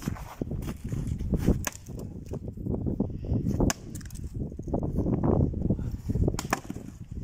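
Large splitting maul striking and splitting firewood logs on a chopping block: sharp cracks a couple of seconds apart, two of them in quick succession about a second and a half in. Gusts of wind rumble on the microphone.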